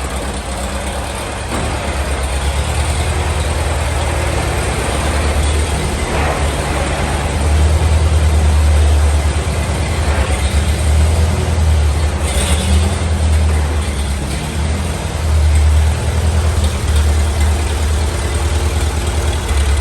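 Gasoline tractor engine running steadily with a deep, low drone, a little louder from about seven seconds in.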